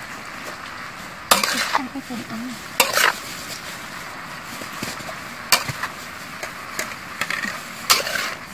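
A metal spatula scraping and clanking against a steel wok as shellfish with chillies are stir-fried, about five loud strokes at uneven intervals over a steady sizzle.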